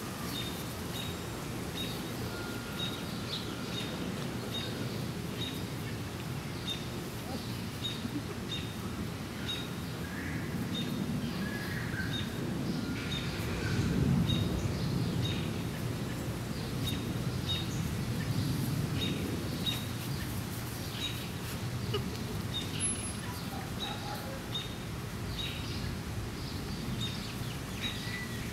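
A bird chirping steadily, a short high note repeated evenly about one and a half times a second, with a few lower chirps now and then, over a steady low rumble of outdoor background noise.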